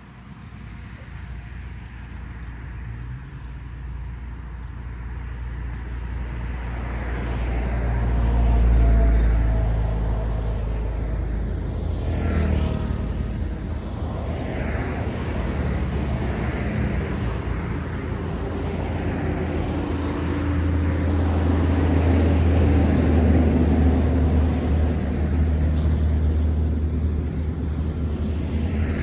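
Road traffic: the low engine rumble of passing vehicles, swelling to a peak about nine seconds in, easing off, then building again through the second half.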